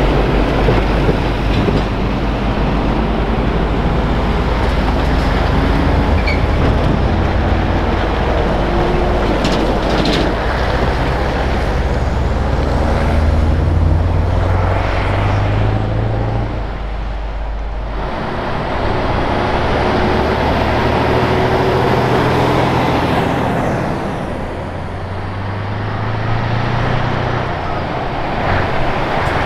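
Scania 164L 480's V8 diesel with an open exhaust pipe, driving past and accelerating, its engine note rising in pitch several times. Other heavy-truck traffic runs beneath it.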